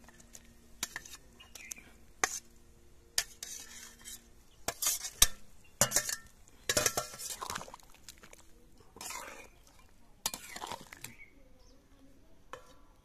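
Metal utensils clinking and scraping against metal cookware in a string of separate clinks and short scrapes, busiest in the middle. A faint low hum sounds underneath and stops about four seconds in.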